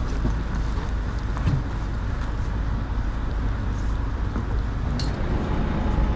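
A vehicle driving along: a steady low rumble of engine and road noise, with a few faint clicks.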